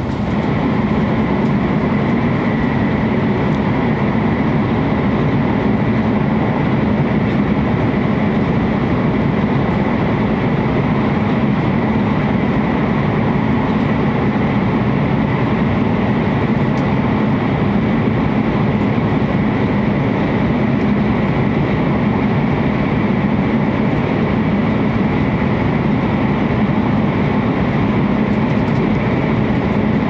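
A W7 series Hokuriku Shinkansen train running at speed, heard from inside the passenger cabin: a steady rumble and rush with a faint, steady high tone.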